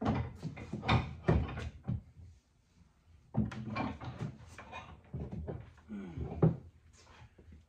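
Axes being handled in a plywood crate: wooden handles and axe heads knocking against each other and the crate walls as they are sorted and lifted out, in clusters of knocks with a short lull about two seconds in.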